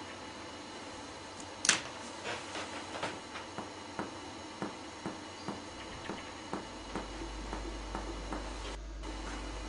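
Finger-on-finger percussion of the back of the chest: after one sharper knock under two seconds in, a regular series of short, dull taps, about three a second. The examiner is percussing upward from the spine of the shoulder blade to find the height of the lung apex.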